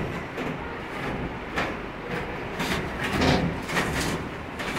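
Croma 1.5-ton window air conditioner's casing scraping and knocking against the wall opening as it is pushed into place, in several short scrapes.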